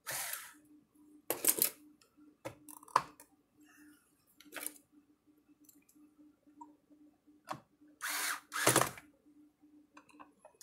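Cordless drill-driver running in about five short bursts, driving screws down, with a few sharp clicks of metal parts being handled between the bursts.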